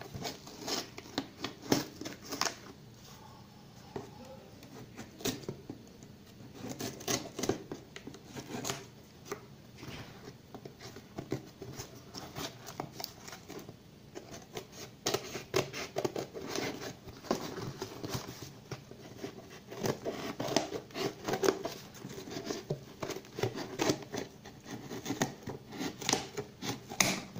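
Scissors cutting and scraping through packing tape on a cardboard shipping box: irregular snips and scratches of the blades on tape and cardboard, with the box being handled.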